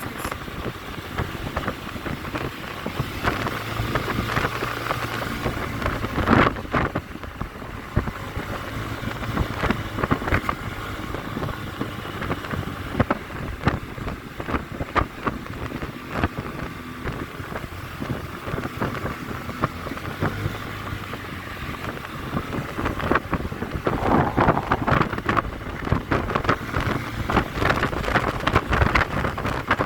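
Scooter engine running while riding, with wind buffeting the microphone.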